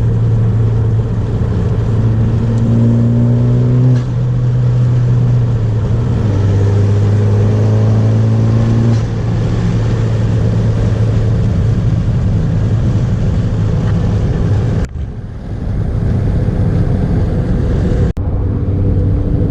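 Turbocharged four-cylinder of a 10th-gen Honda Civic hatchback fitted with a PRL Cobra cold air intake, accelerating through the gears with intake sound, heard from inside the cabin with wind noise. The engine note climbs twice and drops at a gear change about 4 s and 9 s in, then holds steady with two brief dips near the end.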